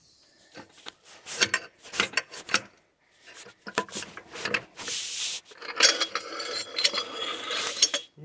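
Close rubbing and scraping with knocks and clinks: clothing brushing against the microphone while metal drivetrain parts, a splined gear shaft among them, are handled. The scraping is densest and loudest in the second half.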